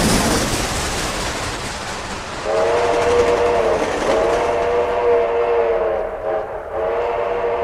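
Multi-chime train whistle, the stock 'HB' cartoon whistle sound effect, blowing a chord in three blasts starting about two and a half seconds in. Underneath runs the steady rushing noise of a moving train, loudest at the start.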